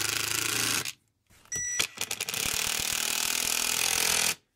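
Cordless drill-driver running in two spells, driving coarse screws into a chainsaw's handle. The first spell stops about a second in; the second starts shortly after and runs about three seconds before cutting off near the end.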